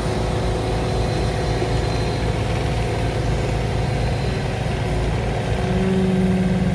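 Excavator engine running steadily during a deep dig, with a stronger steady hum setting in about two-thirds of the way through.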